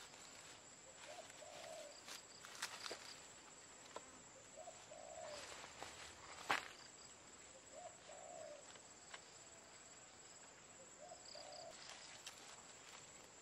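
A dove cooing four times, a low two-part coo about every three seconds, over a steady high insect drone. Dry grass and twigs crackle as branches are handled and trodden, with one sharp snap of a twig about six and a half seconds in.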